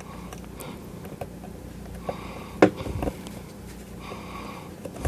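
Small scattered clicks and taps of test-lead probe tips against a circuit board's tiny MELF resistors, with a sharper click about two and a half seconds in. Soft nose breathing and a steady low hum run underneath.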